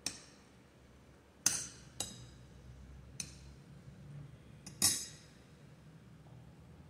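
A metal utensil clinking against a glass bowl while eating: five sharp clinks at irregular intervals.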